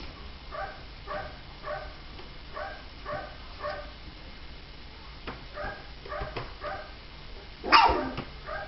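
Three-week-old puppies whimpering: a string of short, high squeaky cries about half a second apart, with a louder yelp near the end.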